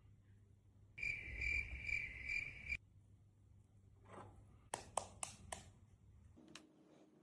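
Cricket chirping in a pulsing high trill that starts and cuts off abruptly after under two seconds. A quick run of sharp clicks follows.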